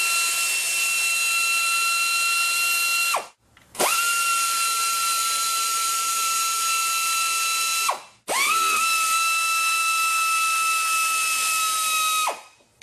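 Pneumatic air ratchet running in three long bursts of about four seconds each. It makes a steady high whine over air hiss as it spins out valve cover bolts. The pitch climbs quickly at the start of each burst and drops away as the trigger is released.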